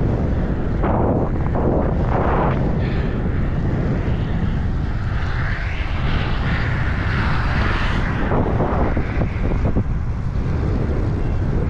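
Wind buffeting the microphone of a camera on a moving bicycle, with a car passing on the highway about midway, its tyre hiss swelling and fading.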